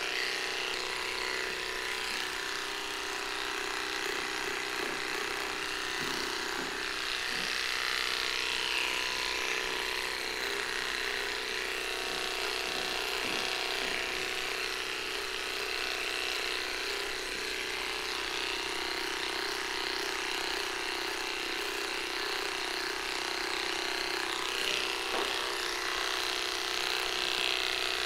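Cordless electric pet clippers running steadily while they are worked through a small dog's coat.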